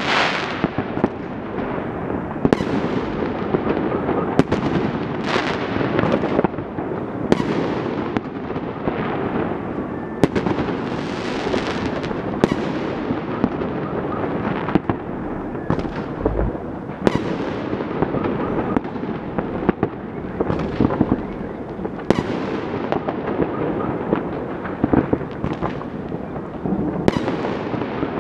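Fireworks going off all over a city at once: a steady crackle with frequent loud bangs, each trailing off as it echoes.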